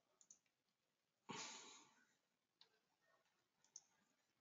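Near silence. A single faint breath comes a little over a second in, with a few faint clicks around it.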